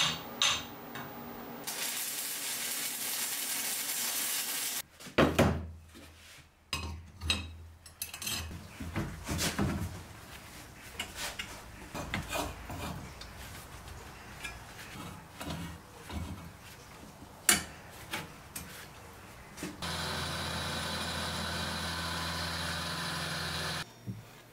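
Hand metalworking sounds: a few metal clinks, a steady hiss for about three seconds, then several loud knocks. A long stretch of irregular rubbing and scraping on steel follows. Near the end a machine runs with a steady hum for about four seconds, then cuts off.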